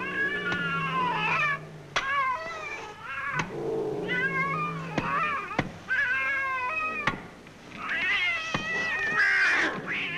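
A cat meowing over and over in long, drawn-out cries of a second or two each, with a few sharp knocks in between.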